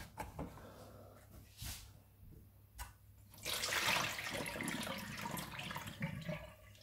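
A plastic box's clip-on lid comes off with a few light clicks. Then, from about three and a half seconds in, brine is poured out through a metal sieve into a stainless steel sink and splashes for a couple of seconds as it drains off the salted ragworms.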